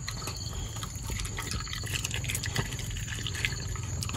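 A young dog lapping and slurping at a bowl of water, making quick wet clicks throughout, over a low steady rumble.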